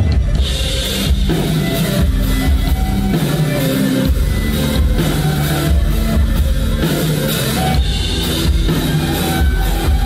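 A rock band playing live on stage during a sound check: a drum kit with cymbals and guitars, at a steady loud level.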